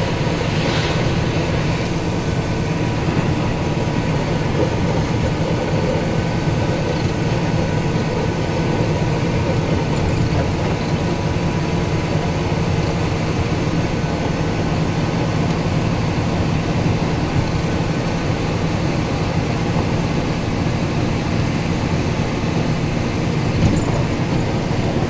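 Steady diesel engine and road noise inside the cab of a Mercedes-Benz Unimog snowplough cruising on a snowy highway, a low even rumble with one brief louder knock near the end.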